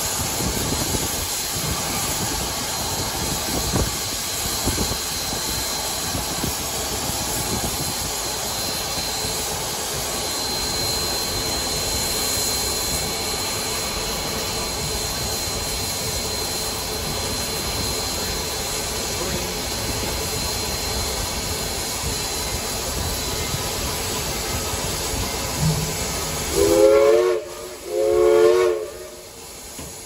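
Steady steam hiss in the cab of Southern Railway 4501, a 2-8-2 Mikado steam locomotive. Near the end its steam whistle sounds two short blasts, each a chord of several tones that slides up in pitch as it opens.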